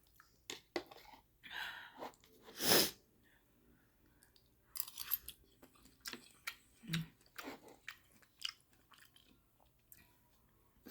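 Close-up chewing and mouth smacking while eating noodle soup, in short irregular bursts with one louder burst about three seconds in.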